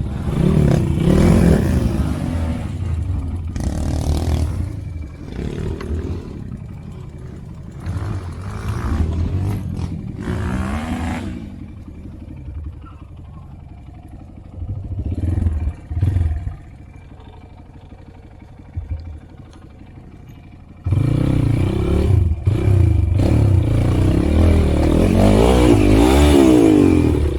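Motorcycle engine revving and easing off over and over, with clattering and scraping; it drops back to a lower run in the middle and revs hardest in the last several seconds.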